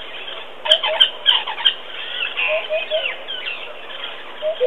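Burchell's coucal giving short low hoots in groups of two or three, the slow lead-in to its fast bubbling call, among the chirps and whistles of other birds.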